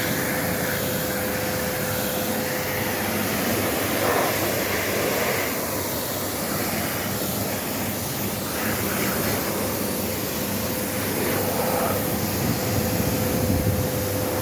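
A machine, such as a motor or fan, running steadily, with a constant whine over a broad rushing noise.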